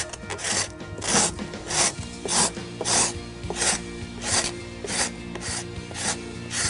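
A hand tool scraping old paint off the wooden hull planking of a schooner, in quick, regular rasping strokes about one and a half a second. Background music plays underneath.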